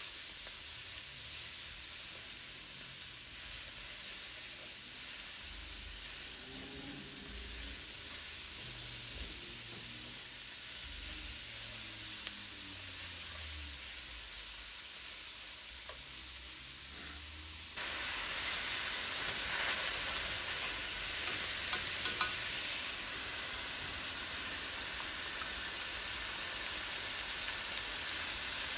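Shredded cabbage and sliced sausage sizzling in a hot pan as they are stirred: a steady frying hiss. About two-thirds of the way through the sizzle abruptly becomes louder and fuller, with a couple of sharp clicks soon after.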